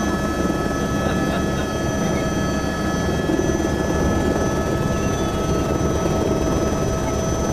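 Helicopter turbine and rotor heard from inside the cabin during lift-off: a steady loud drone with a constant high whine over it.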